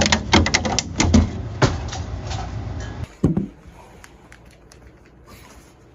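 A service dog fetching a drink: a quick run of clicks and knocks over a low rumble, then a single thump about three seconds in, after which it goes quiet.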